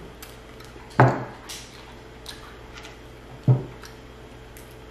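Tableware clatter while king crab legs are eaten: two solid knocks, about a second in and about three and a half seconds in, with light clicks of shell or utensil between them.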